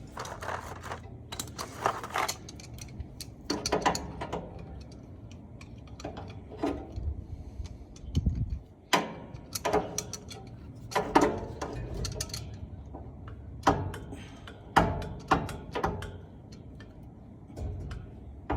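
Hand tool working the small terminal screws on an old refrigerator compressor's ring connectors: irregular metallic clicks and scrapes, with a duller knock about eight seconds in.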